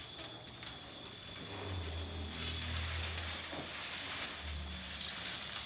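Dry banana leaves rustling and crackling as they are pulled and dragged off a scrapped van cabin, with a faint low hum coming and going behind it.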